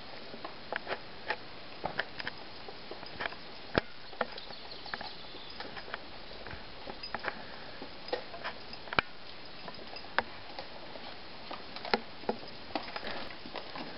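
Irregular sharp clicks and light knocks from walking on a rocky mountain trail, a few of them louder, over a steady hiss.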